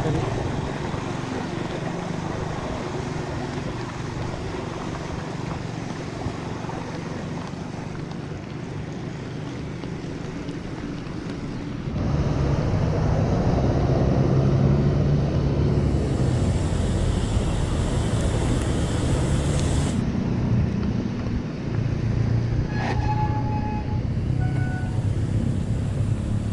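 Wind rumbling on the microphone of a bicycle riding through a flooded street, with water washing under the tyres. About twelve seconds in the sound jumps louder: riding along a wet main road with cars passing.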